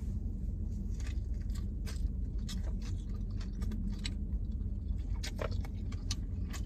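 A person biting into a thick burger and chewing it: scattered small clicks and smacks of chewing over a steady low hum.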